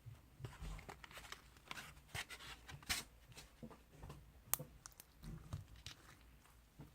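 Slime being handled and squished by hand: an irregular run of faint clicks, crackles and small pops, one sharper click about four and a half seconds in.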